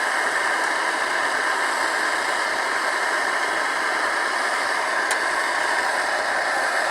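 MSR DragonFly pressurized liquid-fuel stove burning with its flame opened up: a steady, even hiss. There is one faint click about five seconds in.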